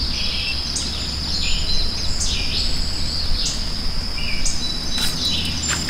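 Outdoor creek-side ambience: a steady high-pitched insect drone with short bird calls repeating about once a second above it, over a low steady rumble.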